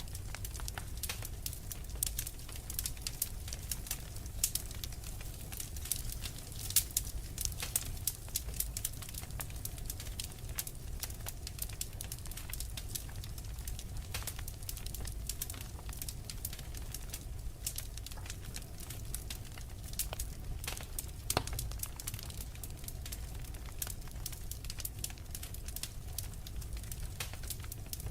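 Wood fire crackling, with irregular sharp pops and snaps scattered throughout over a low steady rumble.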